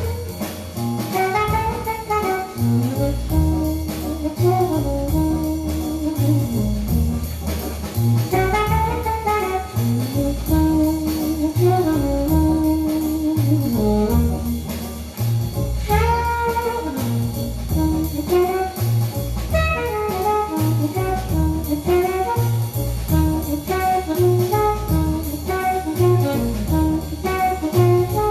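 A jazz tune played back through Bose 701 loudspeakers: a horn melody winding up and down over a steady bass beat.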